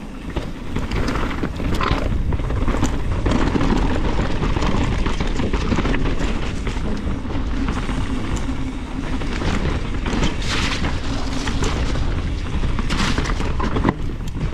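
Mountain bike ridden fast downhill on a dirt trail, heard through a GoPro's microphone: a steady rumble of wind buffeting and tyre noise, with scattered knocks and rattles from the bike over the ground.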